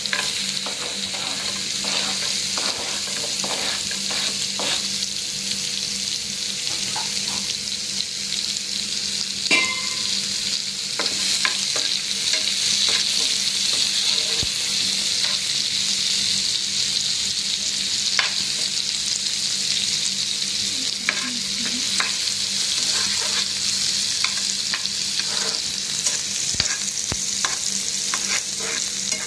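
Diced carrots sizzling in melted butter in a nonstick frying pan, with a spatula scraping and clicking against the pan as they are stirred. The sizzle is a steady hiss, and the spatula ticks come at irregular moments, one louder knock about ten seconds in.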